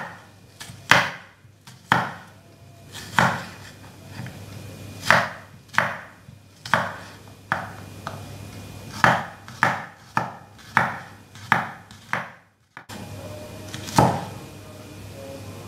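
Chef's knife slicing garlic cloves on a wooden cutting board: a run of sharp knocks as the blade strikes the board, about one a second, quickening to about two a second near the end, then a short gap and one last stroke.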